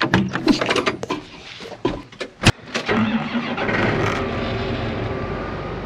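Clicks and knocks of a John Deere tractor's cab door and someone climbing into the cab, with a sharp knock about two and a half seconds in; then the tractor's diesel engine starts and settles into a steady idle.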